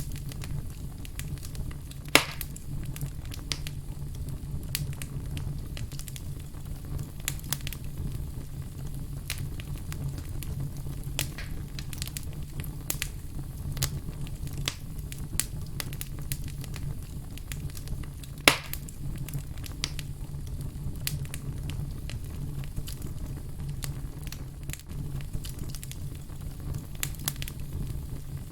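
Wood logs burning in a fireplace: steady low rumble of the flames with scattered crackles, and two loud pops, about two seconds in and near eighteen seconds.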